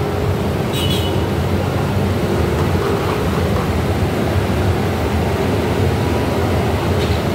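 Steady rumble of road traffic passing below, with a low engine hum running under it.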